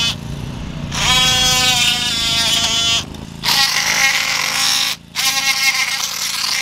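Cordless DeWalt oscillating multi-tool whining as it bevels the rough inside edge of a cut 2.5-inch PVC conduit. It starts about a second in and runs in three bursts with two short pauses.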